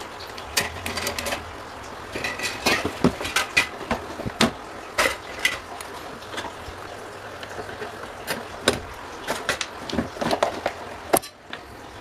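Irregular clicks, taps and knocks of hand tools and metal fan parts being handled and worked on, some strokes ringing briefly.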